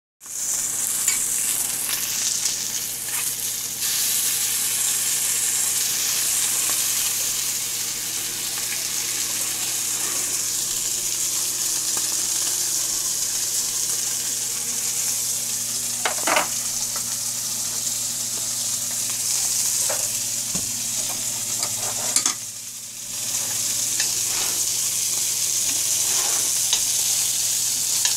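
Pork chops sizzling steadily in a frying pan, with a few short clicks of utensil or pan now and then, and a brief dip in the sizzle a little over halfway through. A steady low hum runs underneath.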